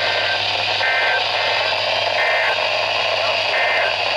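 Weather radio receiver playing NOAA Weather Radio broadcasts through heavy static hiss with a low hum. Over it come about five short two-tone data bursts, each about a third of a second long, spaced about a second apart. These are the EAS SAME end-of-message codes that close the required weekly test, with the codes from two transmitters overlapping.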